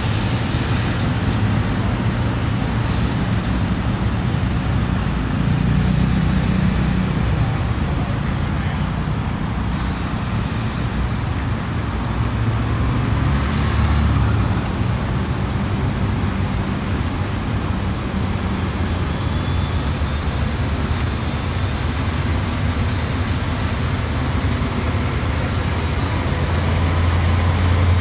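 Heavy-haul truck engine running low and steady as it slowly tows a train car on a multi-axle low-loader trailer, with road traffic noise around it. A motorbike passes close by about halfway through.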